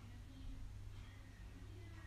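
Quiet background with a steady low hum and a few faint, brief high chirps.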